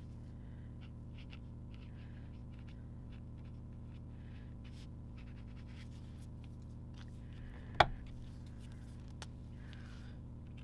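Felt marker tips scratching on dot-grid paper in short strokes as a colour name and squiggles are written, over a steady low hum. A sharp click about eight seconds in, with a fainter one a second later.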